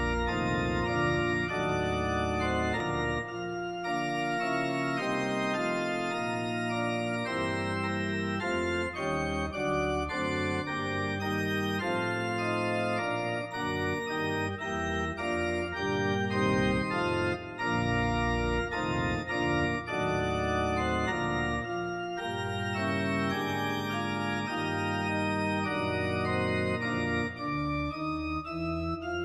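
Organ playing a church prelude, an allegro: held, many-voiced chords that change every fraction of a second over a moving bass line.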